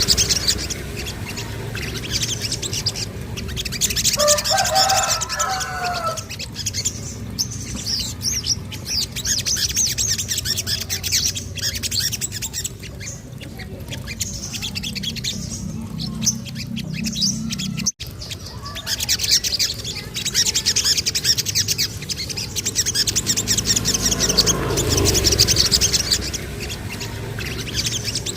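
Sogon (sogok ontong) song: bouts of rapid, high-pitched chirping trills, with a shorter, lower warbling phrase about four seconds in.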